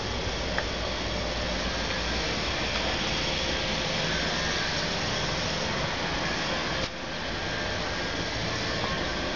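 Ford 655C backhoe loader's diesel engine running steadily at idle, heard up close.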